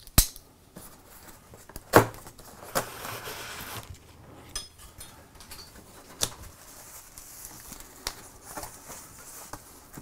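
Cardboard box being opened by hand: sharp clicks and knocks, the loudest about two seconds in, about a second of scraping as the packing tape is cut with a folding knife, then cardboard flaps rustling near the end.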